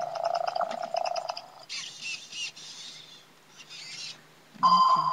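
WowWee Robopet robot dog's electronic sound effects: a warbling, fluttering chirp for about a second and a half, short hissy bursts, then a steady beep-like tone starting near the end.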